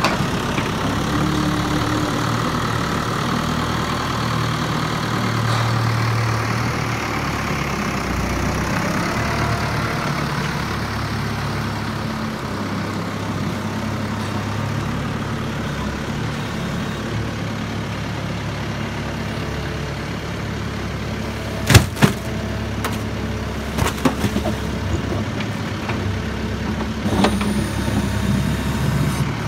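Same Explorer 85 tractor's diesel engine running and revving under load as its front loader scoops and lifts manure. About 22 seconds in there is a sharp bang, the loudest sound, followed by a few smaller knocks.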